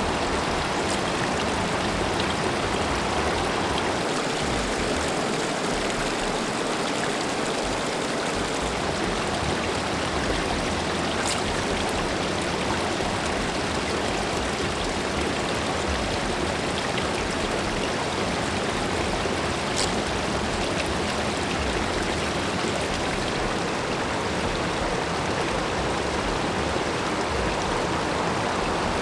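Steady rush of river water flowing over rocks, an even, unbroken noise.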